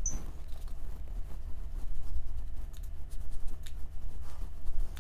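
Makeup brush rubbing bronzer onto the skin of the face in short irregular strokes, over a steady low hum.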